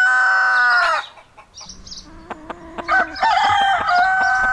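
Rooster crowing twice: one crow ends about a second in, and a second crow starts about three seconds in. A few short sharp sounds come in the gap between them.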